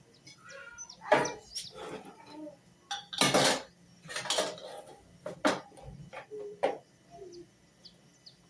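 Dishes and utensils clattering and knocking together in a string of separate clinks, the loudest about three seconds in.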